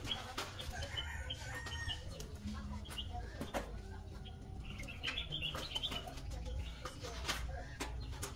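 Chickens clucking in short, scattered calls, over a steady low rumble with occasional sharp clicks.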